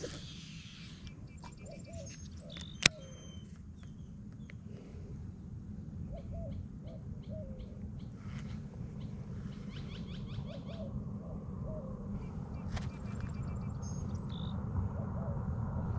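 Birds calling: a low call in short phrases of about three notes repeats several times, with higher chirps over it, against a steady low rumble that grows a little louder toward the end. One sharp click about three seconds in.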